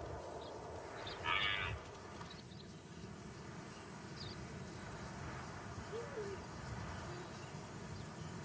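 Evening savanna ambience: a steady high-pitched drone of insects over a low background hush, with one brief louder call about a second in.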